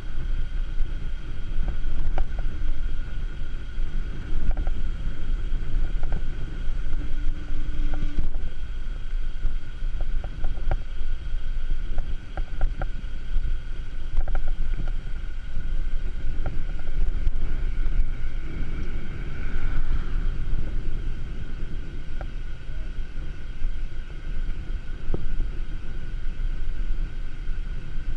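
Steady rumble of wind on a bike-mounted action camera's microphone and tyres rolling on asphalt as the bicycle rides along, with a few light clicks and rattles from the bike.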